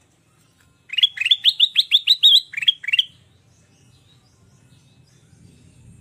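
Kutilang emas bulbul song: a quick, loud run of about a dozen rising chirps in roughly two seconds, starting about a second in.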